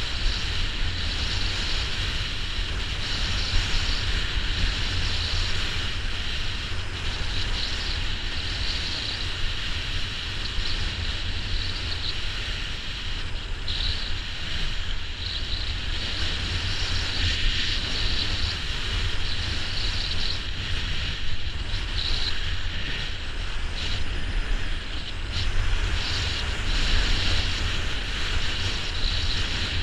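Wind rushing over the microphone of an old GoPro during a downhill ski run, a steady low rumble, with the hiss of skis sliding over packed snow rising and falling.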